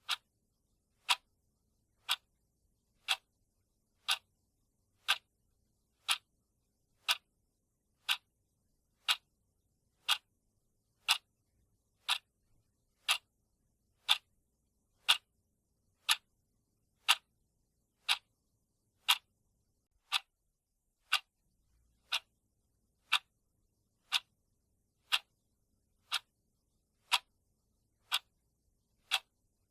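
Clock-ticking sound effect of a countdown timer: one short, sharp tick each second, evenly spaced.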